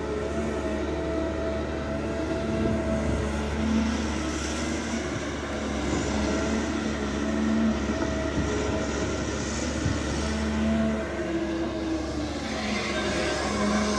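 Caterpillar 320 Next Gen hydraulic excavator working close by: its diesel engine drones steadily under load, with tones that swell and shift in pitch as the hydraulics work the digging and swinging.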